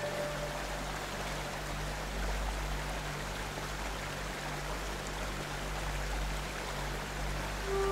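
A steady rain-like rushing hiss with a low steady hum under it, a gap between the held notes of an ambient music track.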